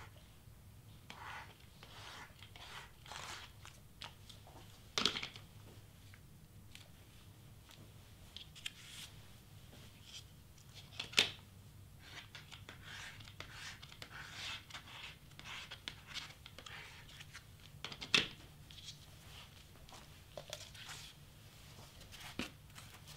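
Stiff cardstock being handled, pressed and lifted off a cutting mat: scattered rustling and scraping, with three sharp clicks or taps about 5, 11 and 18 seconds in.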